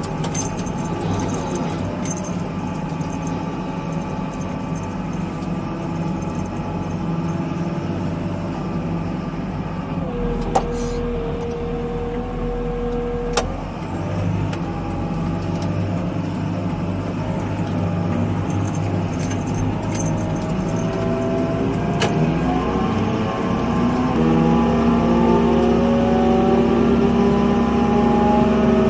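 Excavator's diesel engine running steadily as the machine travels along the road, heard from inside the cab. A steady whine holds for a few seconds around the middle, with a few sharp clicks. Near the end the engine note rises and grows louder as it speeds up.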